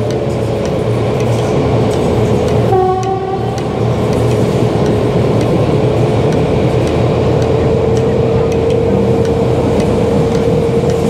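SU45 diesel locomotive hauling a passenger train, heard from an open carriage window: steady running noise of the locomotive and the wheels on the rails. A short horn blast sounds about three seconds in.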